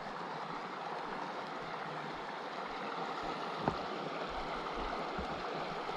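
Creek water running steadily, with one light click a little past halfway.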